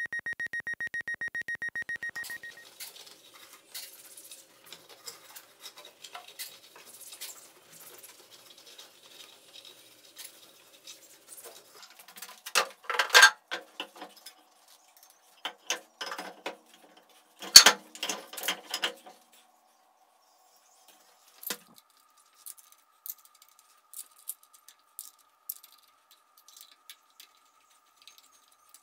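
Scattered clicks, taps and clunks of metal parts and hand tools being handled while a motor is fitted to a milling machine, with the loudest knocks about twelve and seventeen seconds in. A pulsing tone opens it and stops about two seconds in.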